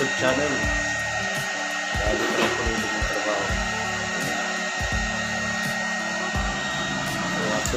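Electric stand fan running with a steady whoosh, a thin high tone running through it, under faint music.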